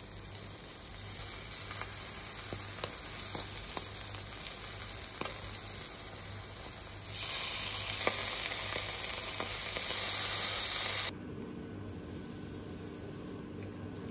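Halloumi cheese slices sizzling in oil in a nonstick frying pan, with small scattered pops. The sizzle gets louder about seven seconds in, then cuts off suddenly about eleven seconds in, leaving quiet room sound.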